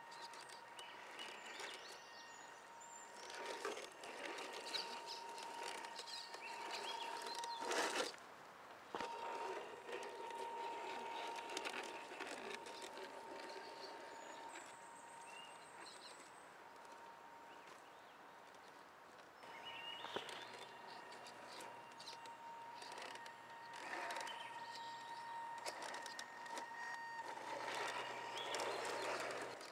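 Radio-controlled 4x4 scale crawler driving over forest floor: a steady high motor whine, with irregular bursts of crunching and rustling as its tyres climb over twigs, moss and leaf litter.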